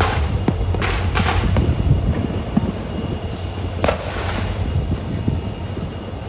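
Express train running along the track behind a WDP4 diesel locomotive: a steady low rumble, broken about five times by short rushes of clatter, near the start, about a second in, and twice around the middle.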